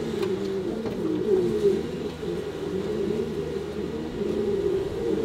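Domestic pigeons cooing: low, wavering coos overlapping one another without a break.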